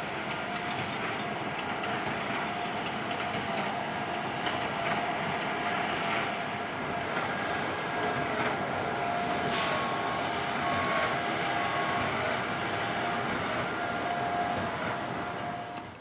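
John Deere 6155R tractor working under load, pulling a Massey Ferguson 2240 large square baler that is baling hay: a steady mechanical drone with faint clicks. It fades out near the end.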